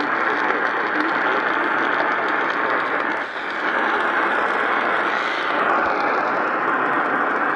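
Steady radio static: an even hiss with no voice or tone in it, with a brief dip about three seconds in.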